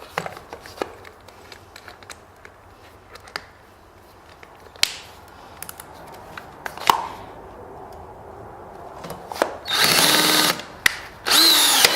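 Scattered clicks and knocks of handling as bits are changed in a power drill's chuck, then the drill runs in two short whining bursts near the end, driving a drill-powered rivet-gun adapter to set a pop rivet.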